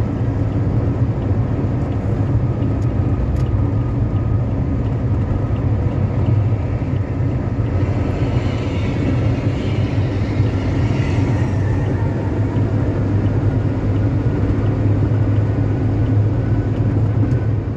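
Road and engine noise inside a sedan cruising at highway speed: a steady low rumble under tyre hiss. The hiss swells for a few seconds midway as the car passes a bus.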